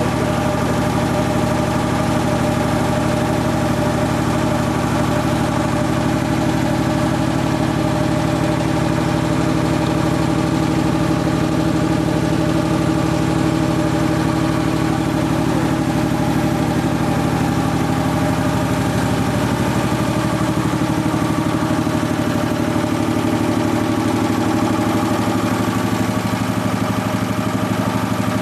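Sperre HV2/200 two-stage piston air compressor running steadily on a test run, a continuous mechanical drone with a fast even pulse; its note shifts slightly about twenty seconds in.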